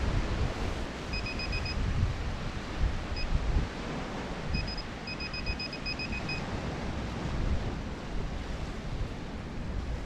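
Handheld metal-detecting pinpointer giving short, high beeps in quick trains as it is probed into the sand, signalling metal close to its tip. Several trains come in the first half, the longest around the middle, over a steady rush of wind on the microphone and surf.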